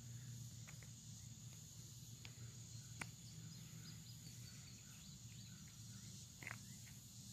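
Near silence: a faint steady insect drone, with a few light clicks and scrapes of a thin stick probing a hole in a rotten log.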